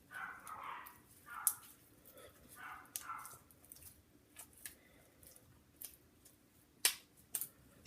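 Borax slime being kneaded and pulled by hand: faint, soft squelches in the first few seconds, with a few sharp sticky clicks and pops scattered through, the loudest near the end.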